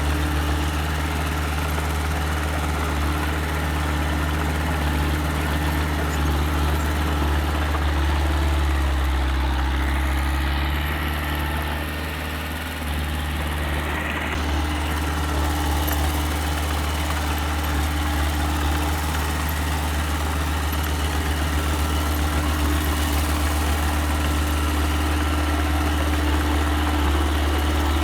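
Diesel engine of a small earthmoving machine running steadily at low revs. About a third of the way through its note shifts and dips briefly, then settles back to a steady run.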